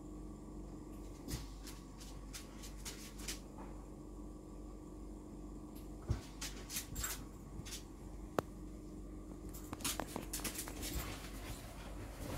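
A dog moving about, with scattered light clicks and taps in small clusters and one sharper tap, over a steady low hum.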